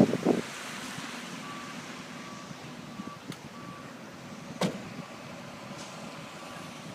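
A faint electronic beep repeating about twice a second, over a steady hiss of heavy rain, with one sharp knock partway through.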